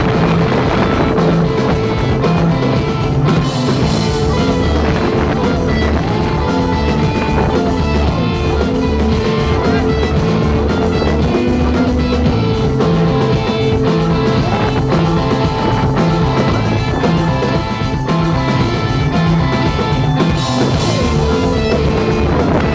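Rock band playing live: electric guitars and drum kit, with long held notes gliding from pitch to pitch over a steady drum and bass rhythm.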